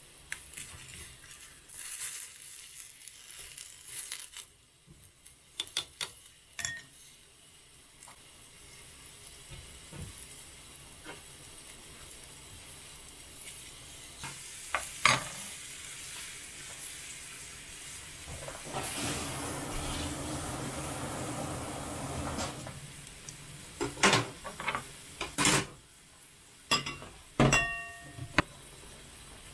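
Ramyun broth simmering and bubbling in a thin aluminium pot on a gas burner, with scattered clicks and taps of utensils against the pot. A louder steady hiss runs for about four seconds past the middle, and a short ringing metallic clink comes near the end.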